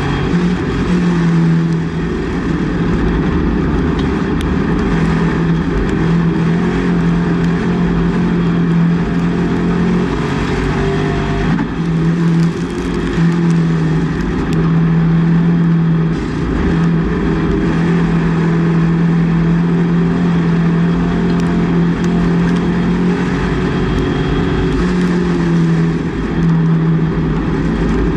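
Race car engine heard from inside the cockpit while racing, running hard at high revs, its note dipping briefly a few times, around two, twelve and sixteen seconds in.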